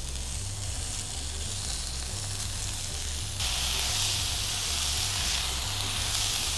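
Marinated beef satay skewers sizzling on a hot electric grill plate, a steady hiss that jumps suddenly louder and brighter about three and a half seconds in.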